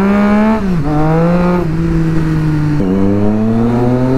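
Triumph Street Triple's three-cylinder engine pulling through the gears. The revs climb, drop at an upshift just under a second in, hold, drop again near the middle and then climb steadily toward the end.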